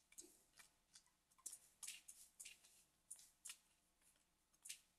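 Near silence broken by faint, irregular clicks of a computer mouse as the map view is zoomed in.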